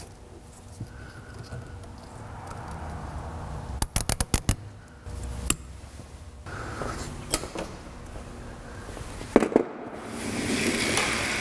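Plastic zip tie ratcheting as it is pulled tight around wiring: a quick run of sharp clicks about four seconds in, then a few single clicks. A swell of even noise comes in near the end.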